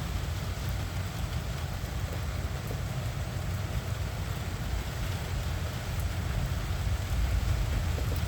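Steady rain from a severe thunderstorm, heard over a continuous low rumble that grows a little louder near the end.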